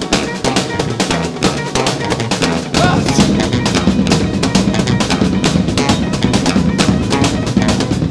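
Live rock band playing an instrumental passage, with a drum kit pounding out a busy beat on bass drum and snare. About three seconds in, the band comes in fuller and louder, with a heavier low end.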